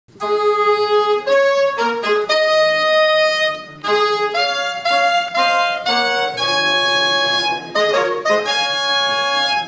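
Saxophone ensemble playing a march: held, reedy chords in phrases, with a short break about three and a half seconds in.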